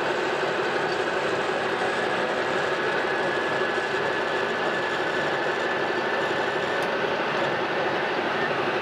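Metal lathe running steadily while an indexable-insert cutting tool turns down brass stock to a smaller diameter, with a faint high steady tone over the machine's running noise.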